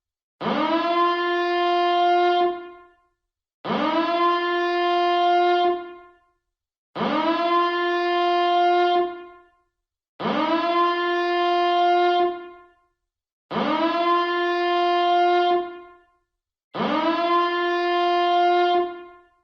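Nuclear power plant reactor alarm siren sounding in repeated horn blasts, six in all, one about every three and a third seconds. Each blast swoops up quickly to a steady, buzzy horn tone, holds for about two seconds, then fades out before a short silence.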